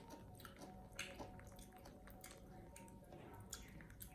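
Faint, wet chewing and smacking clicks, irregular and close, of a monkey eating food.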